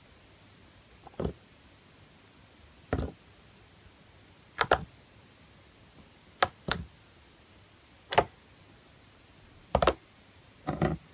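Fingertips poking into soft, thick slime, each poke giving a short clicking pop. About seven pokes come roughly every one and a half to two seconds, a few of them as quick doubles.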